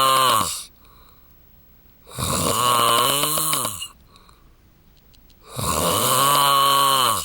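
Man snoring in his sleep. One snore ends just after the start, and two more follow about three and a half seconds apart, each lasting under two seconds and dropping in pitch as it ends. Between snores the breathing is nearly silent.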